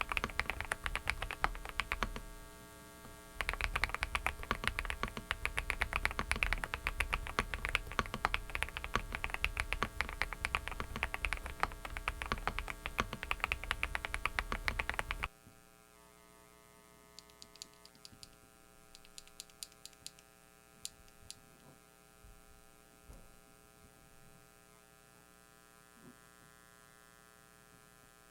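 Fast typing on a Dareu mechanical keyboard, a dense run of key clicks with a short pause about two seconds in, cutting off abruptly about fifteen seconds in. A few scattered key presses follow over a steady electrical hum, noise from a faulty microphone.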